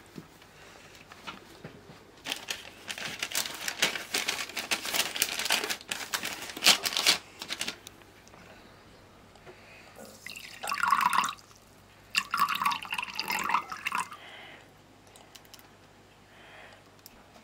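Cooking oil poured from a plastic bottle into a porcelain cup, in two short spells in the second half. Before it comes a few seconds of crackly rustling and clicking from handling on the table.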